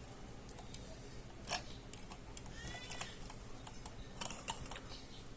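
Faint scattered clicks and light knocks of a plastic transforming robot figure and its accessories being handled, with a brief faint high-pitched squeak near the middle.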